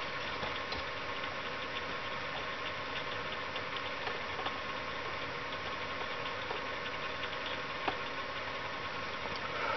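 A steady mechanical drone, like a small engine or motor running, with a few faint clicks and taps, the clearest about eight seconds in.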